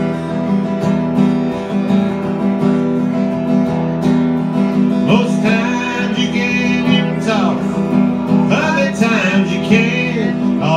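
Acoustic guitar strummed steadily through an instrumental stretch of a live country song. About halfway through, a second melody line that bends in pitch comes in over the strumming.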